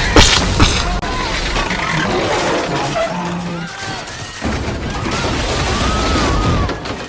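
Film soundtrack of a train crash: a sharp crash near the start, then a dense, continuous din of shattering and crashing.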